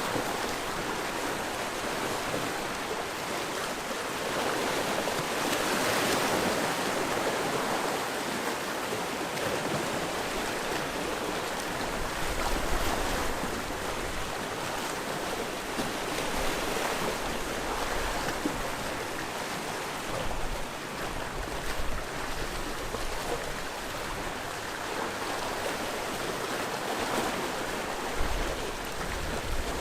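Sea waves washing against a rocky shore, a steady rushing surf that swells and eases, with a few low thumps of wind on the microphone.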